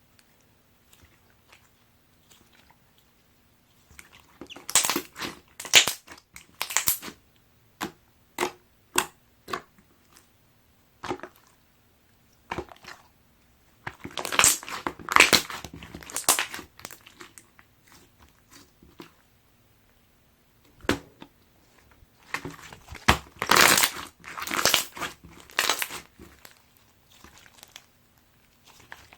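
Pink clear slime being squeezed and pressed by hand, giving clusters of sharp clicks and pops, with short quiet pauses between the handfuls.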